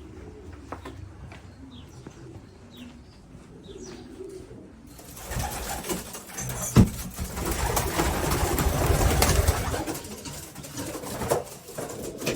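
Pigeons cooing in the loft. About five seconds in, a louder rustling clatter starts and runs for several seconds, with one sharp knock in the middle, then dies back to cooing.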